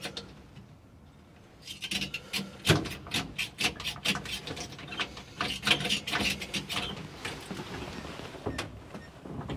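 Electric fuel pump on a Willys FC-170 clacking rapidly, at about five clacks a second, starting about a second and a half in.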